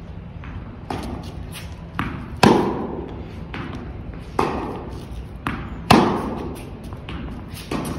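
Tennis rally: balls struck by rackets and bouncing on an indoor court, each impact echoing through the hall. The two loudest hits, about two and a half and six seconds in, come from the nearby player's racket.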